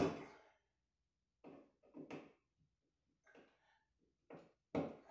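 A handful of short knocks and scrapes from hands working the ceiling fan's mounting bracket at the electrical box overhead. The sharpest knocks come at the start and just before the end.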